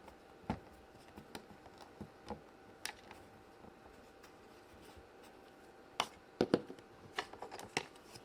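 Scattered light clicks and taps from hands handling small plastic Play-Doh toy pieces and dough, a few in the first three seconds and a quicker run of them near the end.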